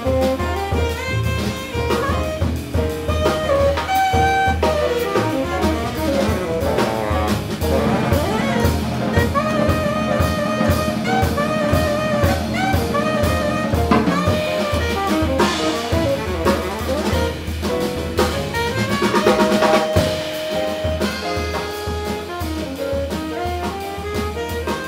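Small jazz group playing: alto and tenor saxophones, piano, double bass and drum kit, with the drums keeping a steady pulse of cymbal and drum strokes under the horn and piano lines.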